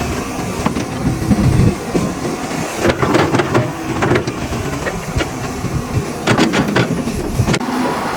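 CAT 320C tracked excavator working: its diesel engine running under load with a rumble, and repeated sharp metallic clanks and knocks from the bucket, boom and tracks, bunched in clusters about three seconds in and again near six seconds.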